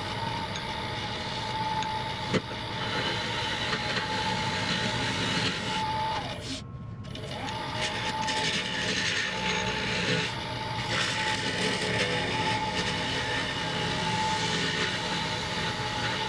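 Wood lathe running with a steady whine under a rough rushing noise of the spinning cedar bowl being worked. There is a sharp click about two seconds in, and the sound drops out briefly about seven seconds in.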